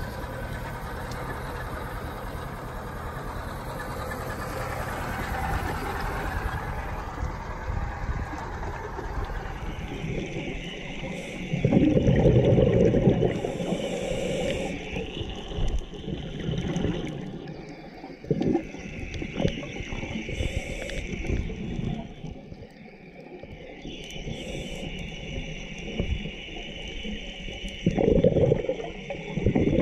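About ten seconds of steady rushing wind and wave noise at the sea surface, then underwater the sound of a scuba diver breathing through a regulator: a long hiss on each inhale and a loud rumbling gush of exhaled bubbles, once near twelve seconds in and again near the end.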